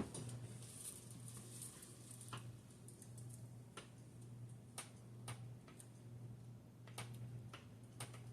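Modern Fan Company Cirrus ceiling fan's K55-type motor running on low speed: a quiet, steady low hum that slowly swells and fades, with light ticks at irregular intervals.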